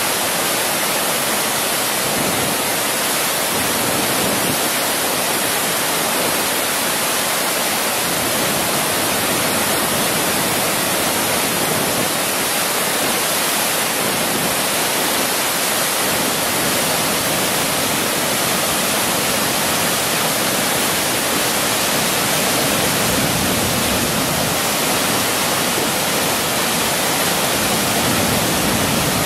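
Floodwater pouring over a dam's spillway and churning in the channel below: a loud, steady rush of water that never lets up. The dam is overwhelmed by a river in full flood.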